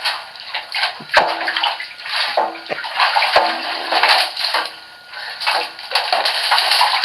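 Water running and splashing as a hen is rinsed after a shampoo, coming in uneven gushes, with a sharp knock about a second in and another later.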